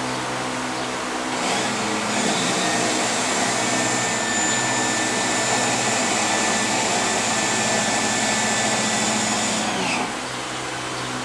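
Electric power trim/tilt pump of a Mercruiser Bravo sterndrive running steadily as it drives the trim cylinders and tilts the outdrive up. It gets louder about a second and a half in and winds down with a falling pitch near the end.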